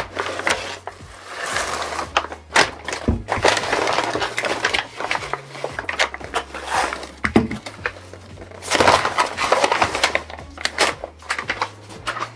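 Paper takeaway bags rustling and crinkling in irregular bursts of crackle and clicks as food is unpacked from them, over background music with a low bass line.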